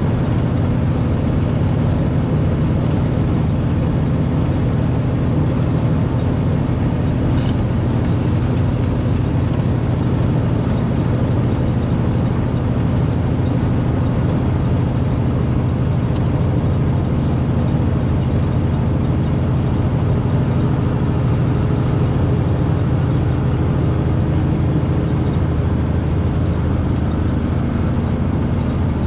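Semi truck cruising on the highway, heard from inside the cab: a steady diesel engine drone mixed with road noise.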